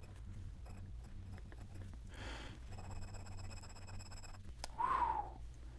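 Glass dip pen nib scratching faintly across notebook paper while writing a word and laying down an ink swatch, with a brief louder sound near the end.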